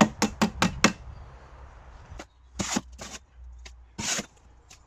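Shovel chopping and turning wet sand-and-cement mortar in a steel wheelbarrow while it is hand-mixed: about five quick strokes in the first second, then a few single strokes spaced out.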